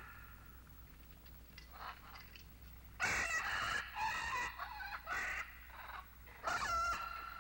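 Several short, pitched animal calls in separate bursts, starting about three seconds in, with the last near the end.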